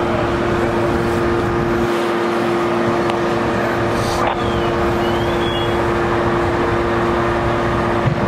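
Fire truck's diesel engine running steadily, a constant drone with a strong steady hum in it.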